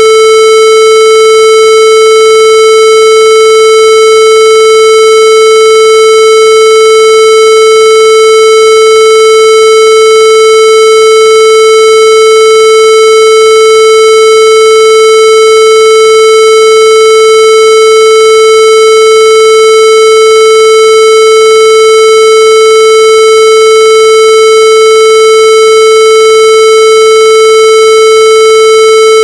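Loud, steady electronic tone held at one mid pitch without a break, harsh and buzzy with strong overtones.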